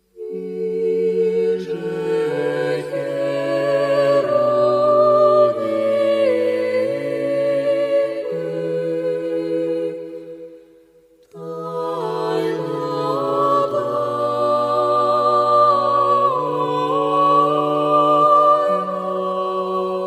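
Slow a cappella vocal music: several voices hold sustained chords that shift step by step, in two long phrases with a brief silence about halfway through.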